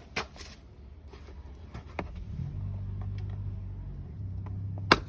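Small plastic clicks and taps as a car door trim piece is worked loose, ending in one sharp snap near the end. A low steady hum comes in about halfway through.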